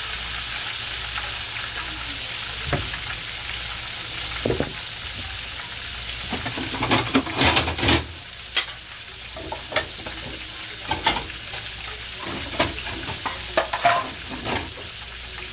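Breaded chicken frying in hot oil in a cast iron skillet: a steady sizzle with sharp pops and crackles scattered through it, thickest about seven to eight seconds in.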